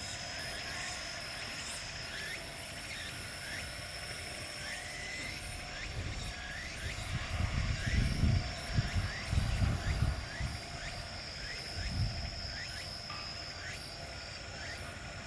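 Outdoor countryside wildlife: a steady high-pitched buzz with short rising chirps repeating about twice a second. In the middle, gusts of wind buffet the microphone.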